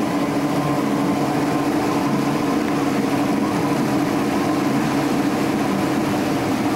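V6 outboard motor on a 20-foot ski boat running steadily at speed, with the rush of wind and water from the moving boat.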